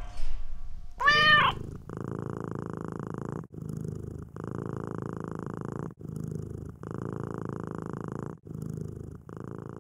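Domestic cat giving one short meow, then purring steadily, with a brief break at each breath.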